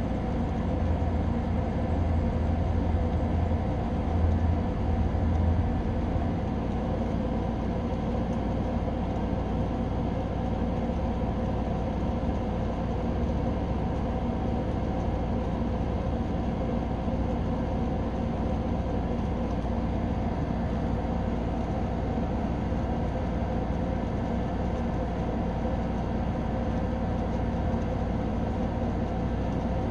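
A car driving past on the street, a low rumble that swells and fades over the first few seconds, over a steady background hum of street ambience.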